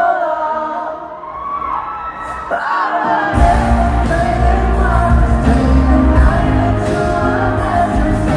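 Live pop song heard through an amateur recording: a sustained, gliding vocal line over a sparse backing, then the full band comes in with heavy bass and a steady drum beat about three seconds in.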